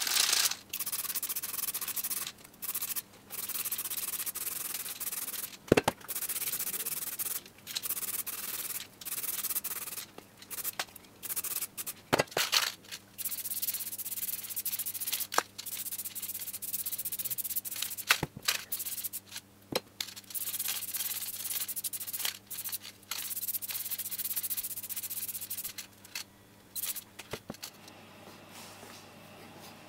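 Aerosol spray-paint can hissing in repeated bursts of a second or two, with short gaps and a few sharp clicks between them, as brake disc hubs are sprayed. The spraying stops near the end, leaving a faint steady hum.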